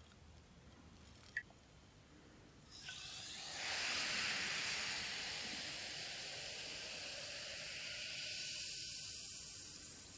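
A single faint click, then a steady hiss that starts about three seconds in, is loudest just after it begins and eases slightly toward the end.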